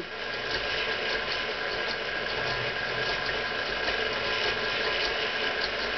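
Stand mixer running with its wire whisk, a steady whir as it cuts cold butter into flour for biscuit dough.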